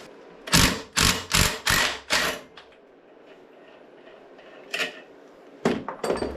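Impact wrench hammering in short bursts on an engine nut that is expected to be reverse-threaded: five quick bursts about half a second apart in the first couple of seconds, then a few more near the end.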